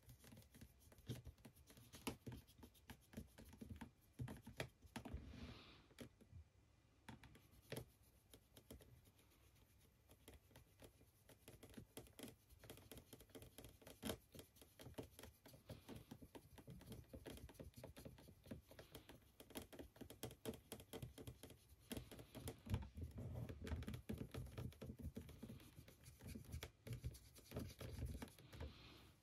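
Faint scratching and small scattered clicks of a paintbrush working paint onto a hand-held 3D-printed figure, with soft handling noise from the fingers gripping the model.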